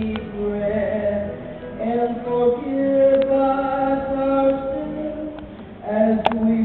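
A group of men and women singing a slow song together with acoustic guitar accompaniment, holding long notes. A sharp click about six seconds in.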